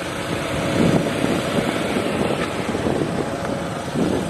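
2013 GMC Terrain's 2.4-litre four-cylinder engine idling steadily, heard under a constant noisy hiss.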